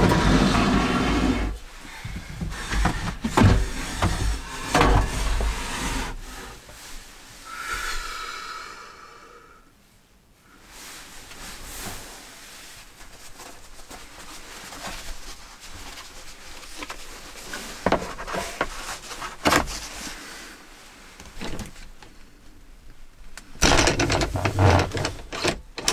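Assorted knocks, bumps and rustling of things being handled, with a brief squeak about eight seconds in and a louder burst of rustling and knocking near the end.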